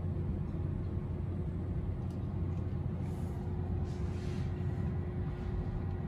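Steady low road and tyre rumble inside the cabin of a 2021 Tesla Model 3 electric car rolling slowly along a paved road, with a faint steady hum over it.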